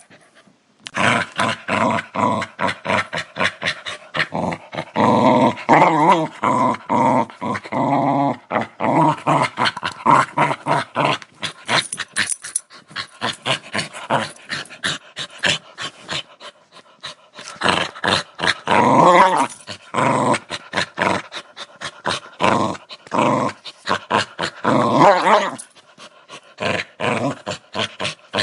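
A dog growling in long runs of rapid rough pulses, some rising into snarls, with a short pause around the middle.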